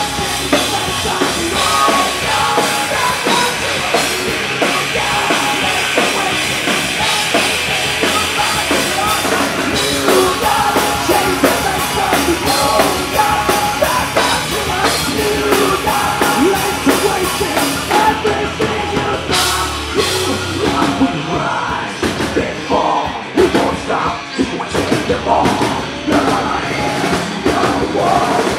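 Live rock band playing loud through a PA: electric guitar, bass guitar and drum kit, with a male singer singing into a handheld microphone. About two-thirds of the way in the sound thins briefly, then comes back choppier.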